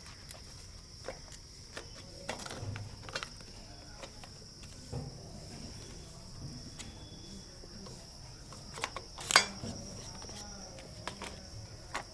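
Crickets chirring steadily, with scattered light clicks and knocks over them; the loudest is a sharp knock about nine seconds in.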